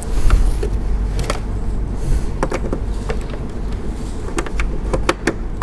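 Irregular clicks and light knocks of the plastic casing of an all-in-one PC being handled as its back cover is put on loosely and the machine is set upright, over a steady low rumble.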